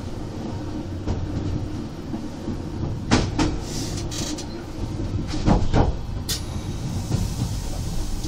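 Stadler GTW 2/6 electric railcar running, a steady rumble heard from on board, with two pairs of sharp clacks about three and five and a half seconds in as its wheels cross joints in the track at a set of points.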